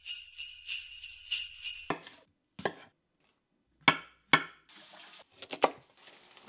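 A bright jingling, bell-like chime pulsing about three times a second for the first two seconds. Then a kitchen knife chops sharply on a wooden cutting board several times, the two loudest chops about half a second apart near the middle, as white mushrooms are sliced.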